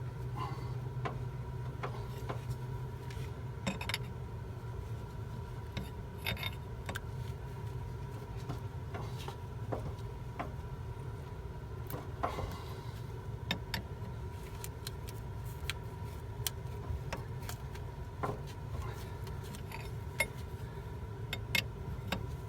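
Scattered metallic clicks and clinks of hand tools tightening a hose clamp on a coolant hose connection, over a steady low hum.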